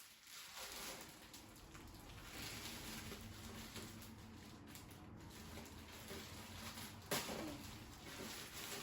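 Faint rustling and handling of cardboard and plastic packaging as a robot vacuum is unboxed, with one sharper, louder handling sound about seven seconds in.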